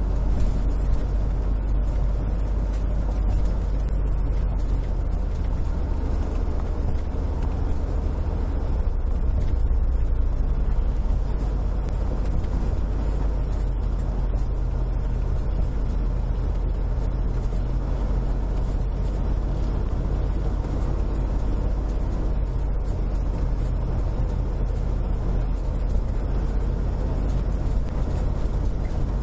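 Steady engine and road drone of a motorhome cruising at highway speed, heard from inside the cab.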